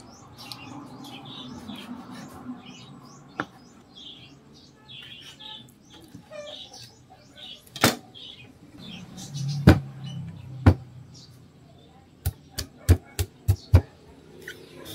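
Small birds chirping in the background. Then sharp knocks of a kitchen knife on a plastic cutting board: single strikes about eight and ten seconds in, then a quick run of about six near the end as a chayote is cut.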